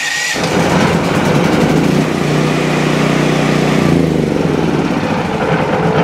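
Westinghouse WGen9500DF generator's engine firing right up on its electric starter, the level building over the first second, then running steadily. It starts now that the recharged battery gives good voltage to the starter and fuel solenoid: the no-start was a flat battery.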